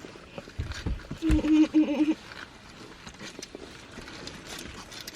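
Two dull thumps, then a short three-part hummed vocal sound from a person, followed by faint scattered clicks and rustles.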